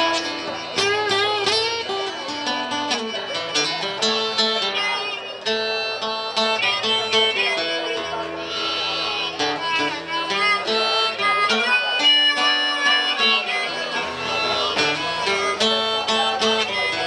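Live acoustic blues played by a duo: a steel-string acoustic guitar with a drum kit, and a lead line at the microphone whose notes bend.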